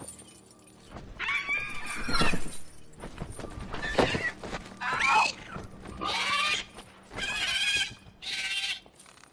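A dragon's shrieks, sound-designed creature cries: about six high, piercing calls in a row, each bending in pitch.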